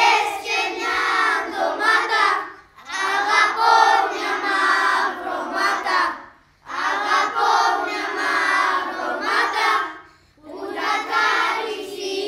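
A group of children singing a traditional Cypriot song together, in phrases with three short breaks for breath between them.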